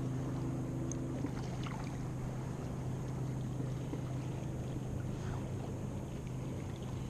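Steady rush of river water, with a low, even hum underneath.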